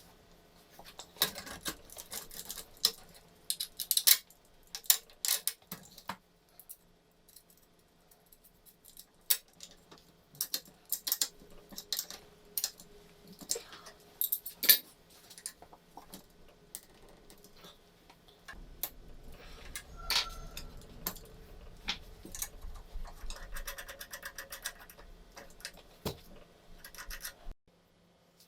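Irregular clinks, clicks and taps of small metal workshop parts being handled. In the second half a low rumble with scraping runs for several seconds under the clicks.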